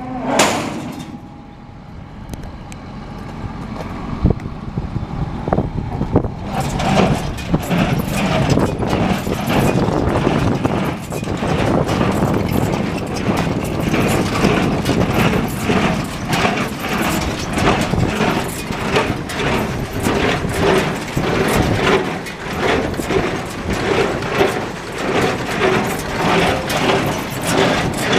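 New Holland 575 small square baler running behind a tractor, its machinery clattering with a regular beat of about one stroke a second. A short loud burst comes right at the start, and the machine noise grows louder about six seconds in.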